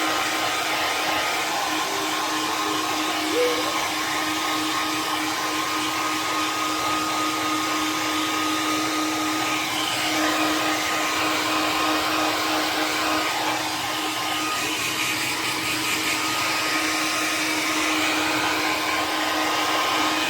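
Hair dryer running steadily on a dog's coat, a constant blowing hiss with a steady motor hum.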